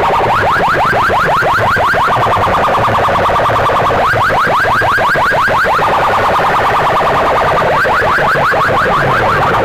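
Electronic siren effect played very loud through competition DJ sound boxes. Bursts of quick rising chirps, about eight a second, alternate every couple of seconds with a steady warbling tone, like a car alarm, over a low pulsing throb.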